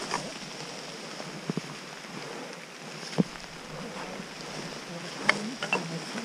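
A hiker's footsteps on a wet, muddy, leaf-covered path and the rustle of a rain jacket and backpack rubbing near the camera, over a steady hiss. A few sharp knocks stand out, the loudest about three seconds in and again about five seconds in.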